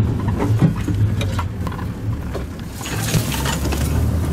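Open safari vehicle's engine running at low speed as it pushes through thorn bush, with branches crackling, snapping and scraping along its sides; the scraping thickens about three seconds in.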